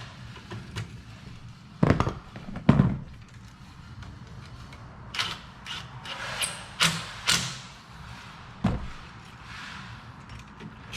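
Two loud thumps about a second apart, then a quick run of sharper knocks and clicks, and one more thump near the end: things being handled and knocked during work.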